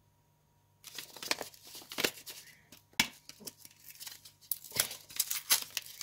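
Paper-cardboard soap box being opened by hand: irregular crackling, rustling and clicking of the carton as its folded flaps are prised apart, starting about a second in.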